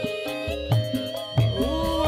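Javanese gamelan music accompanying a tayub dance: a long held melodic line over low drum strokes, which come closer together about a second and a half in.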